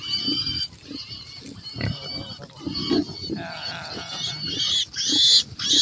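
Farm animals calling: short low calls throughout, with loud, high-pitched cries near the end.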